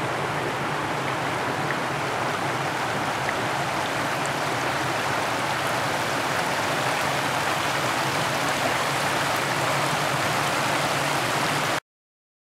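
Shallow, rocky trout stream rippling over a stony bed: a steady rush of running water that cuts off suddenly near the end.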